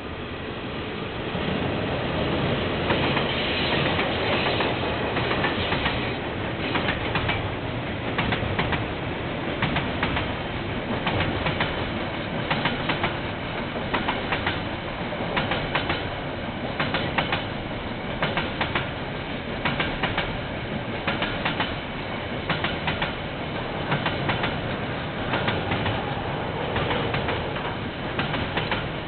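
KiwiRail train passing close by, its wheels clacking over rail joints in a regular run of sharp clicks, often in quick pairs, over a steady rumble that builds to full loudness in the first couple of seconds.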